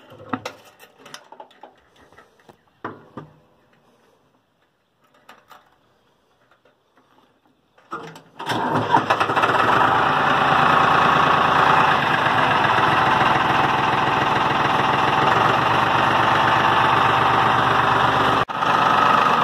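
A few faint clicks at the controls, then the Farmtrac 665 DTC tractor's diesel engine cranks briefly and starts about eight seconds in, settling into a loud, steady idle.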